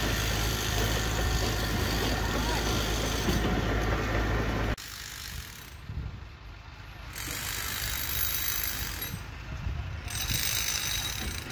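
An engine running steadily with a low hum, cut off abruptly a little under five seconds in. After that, quieter irregular clicks and clatter of hand work on steel.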